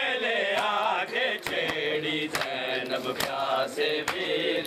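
A crowd of men chanting a Muharram lament (noha) in mourning, with sharp slaps from hands beating on bare chests (matam) every half second to a second.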